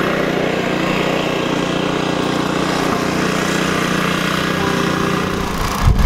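An engine running steadily at idle, a constant low hum, with a few low thumps just before the end.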